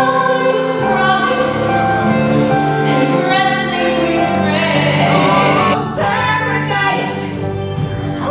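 A young female voice singing a musical-theatre song over instrumental accompaniment, with a change in the music about six seconds in.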